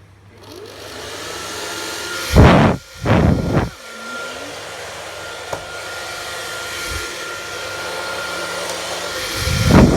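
Phil Smith hair dryer switched on and running with a steady whoosh of air and a thin motor whine. Loud gusty blasts come about two and three seconds in, and again near the end.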